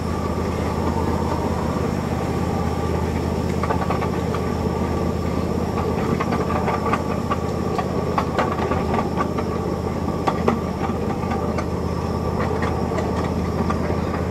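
Miniature park train running, heard from on board: a steady low drone with scattered sharp clicks and knocks from the wheels on the track.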